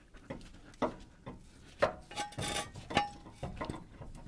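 Irregular metal knocks and clinks as a GM 4WD truck's front axle half shaft (CV axle) is manoeuvred up into place under the truck, with a short metallic ringing tone after two of the knocks.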